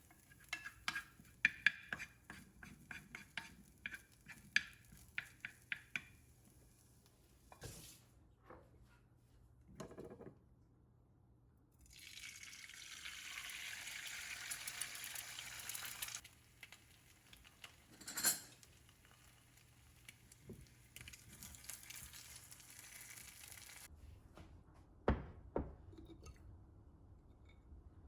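Kitchen preparation sounds: a run of light utensil clicks and taps on a dish, a few scattered knocks, and about four seconds of steady hiss from running or pouring liquid in the middle.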